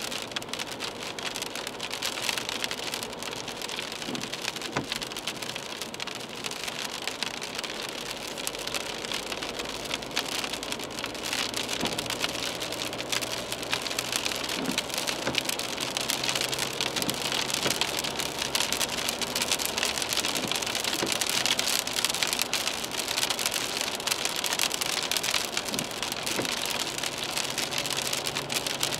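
Rain pattering on the windshield and roof of a moving BMW 320d, heard from inside the cabin, with wet-road tyre noise and a faint steady engine hum beneath. The rain grows louder about halfway through.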